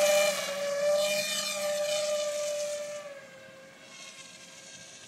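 Electric motor and propeller of a Finwing Penguin FPV model airplane running at a steady high-pitched whine, growing fainter about three seconds in.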